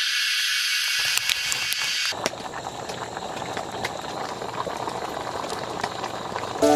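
Cicadas in a loud, dense high-pitched chorus, cutting off abruptly about two seconds in to the steady hiss of heavy rain with scattered drop ticks.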